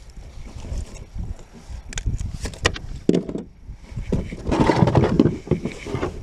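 Close handling noise as a speckled trout is held and unhooked in a kayak cockpit: a run of sharp clicks and knocks about two seconds in, then a louder spell of rubbing and rustling near the end.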